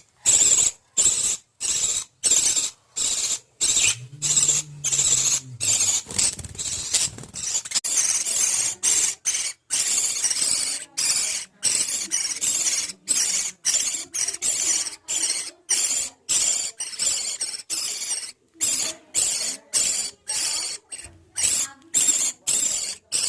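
Budgerigar chicks giving high, rasping begging squeals over and over, about two calls a second, as they are fed by the parent birds.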